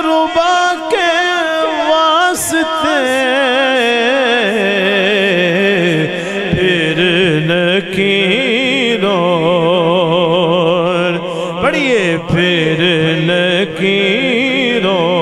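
A man's voice singing a naat in long melismatic phrases, the held notes wavering with heavy ornamentation, with a quick rising slide near the end.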